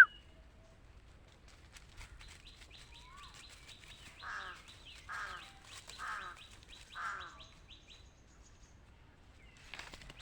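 A bird calling four times, about a second apart, over a faint, fast, high trill. Footsteps on dry leaves start near the end.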